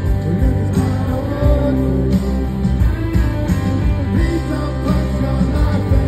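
Live rock band playing: electric guitar, bass and drums with a lead singer, heard loud from within the audience.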